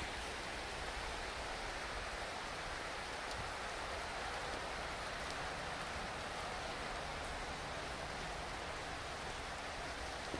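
Steady rushing of flowing river water: an even hiss that stays level throughout.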